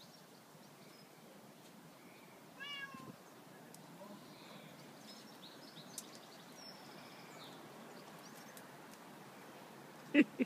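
A kitten meowing: one short, high call about two and a half seconds in, over a faint outdoor background, with a brief, much louder sound just before the end.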